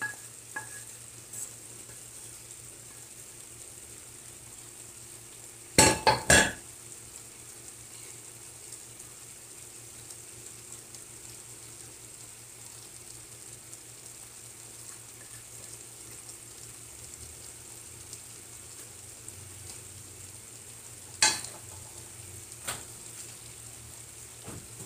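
A pot of rice and chicken simmering on a gas stove with a steady faint hiss. Cookware clanks over it: three quick metallic knocks about six seconds in, the loudest sound here, then a single clank later and two lighter knocks near the end.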